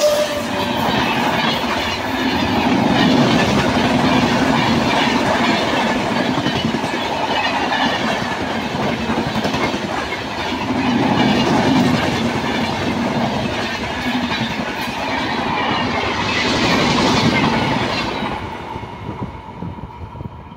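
An Indian Railways express's LHB passenger coaches passing close by at speed, with a continuous loud rumble and clatter of wheels on the rails. The sound fades near the end as the last coach goes by and the train draws away.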